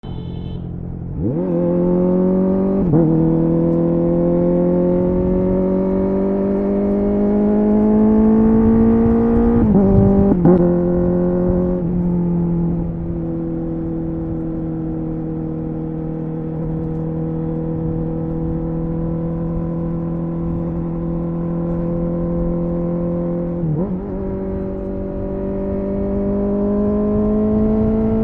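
Honda CBR650R inline-four engine breathing through an SC Project full exhaust system with SC1-R muffler, pulling steadily through the gears with quick upshifts at about 3 seconds and again around 10 to 12 seconds. It then holds a steady cruise, shifts once more near the end and begins pulling again.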